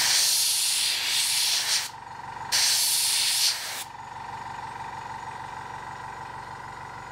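Two bursts of spray from an aerosol varnish can, each a second and a half to two seconds long with a short gap between, sealing a painted miniature. A faint steady hiss and a thin steady high tone run underneath.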